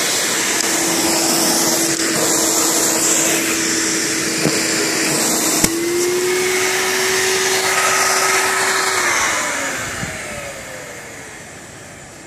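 Vacuum cleaner motor running steadily with a held hum. After a click about halfway through, its pitch steps up a little. It is then switched off and winds down, its whine falling and fading over the last few seconds.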